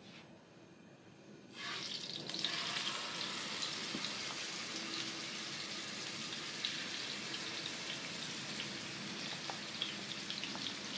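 Marinated fish pieces sizzling in hot oil in a frying pan, starting suddenly about one and a half seconds in as the first piece goes in, then a steady sizzle with scattered small crackles.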